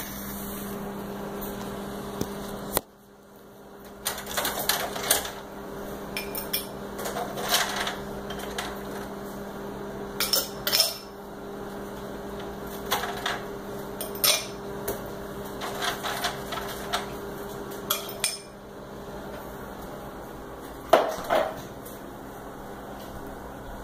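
Containers and items knocking and clinking as someone rummages in a refrigerator, over a steady low hum. There is a louder knock near the end.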